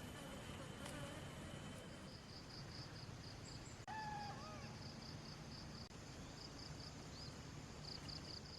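Quiet outdoor ambience: an insect chirping in a fast, high-pitched pulsing rhythm from about two seconds in, with a brief bird call near the middle, over steady background noise.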